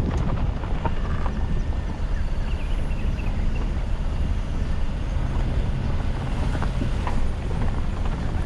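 Ford Escape driving on a gravel road, heard from inside the cabin: a steady low rumble of tyres and engine, with a few short clicks and knocks from the rough surface.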